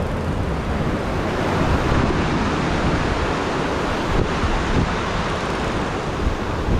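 Ocean surf breaking and washing over lava rocks at the shoreline, a steady rush of water.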